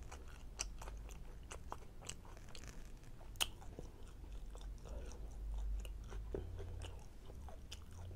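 Close-up mouth sounds of someone chewing and biting food: a chicken fajita in a soft tortilla with peppers and onions, in wet, smacking bites with many small clicks and one sharper click about three and a half seconds in.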